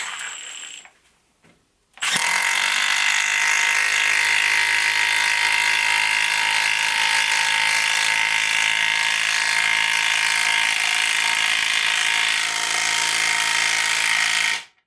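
Milwaukee M12 stubby 1/2-inch impact wrench hammering as it drives a long hex-head screw into a wooden beam. It gives a short burst at the start, then runs without a break from about two seconds in until it stops abruptly near the end as the screw seats.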